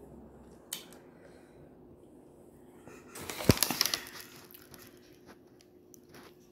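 Thin plastic bag of boiled crawfish rustling and crinkling for about a second as it is handled, with a single thump in the middle. A short click comes earlier.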